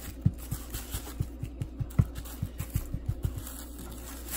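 A plastic grocery bag rustling, with soft, irregular thuds about four or five times a second as a hand presses a fish fillet into cornmeal fish-fry breading inside it. Music plays underneath.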